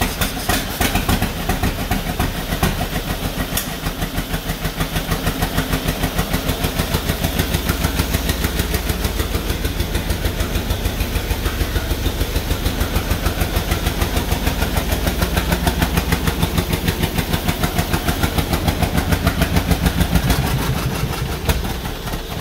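1949 John Deere B two-cylinder tractor engine running roughly on only one cylinder after its rebuild, a steady beat of firing pulses with a lot of vibration. It fades out and dies near the end.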